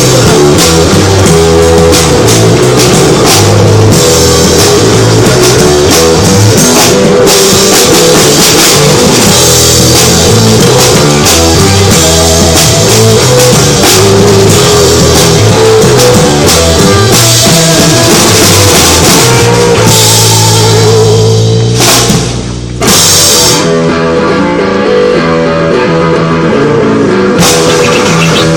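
Loud rock music with a drum kit and guitar and a steady beat, breaking off briefly about three-quarters of the way through before coming back in.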